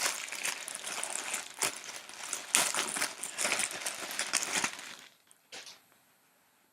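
T-shirt packaging crinkling and rustling as it is handled and opened, full of sharp crackles; it stops about five seconds in, with one brief rustle shortly after.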